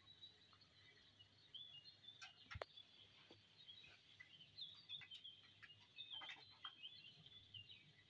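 Faint, high, short chirps repeated in quick succession from a pin-feathered parrot nestling, starting about a second and a half in. A couple of soft clicks come about two and a half seconds in.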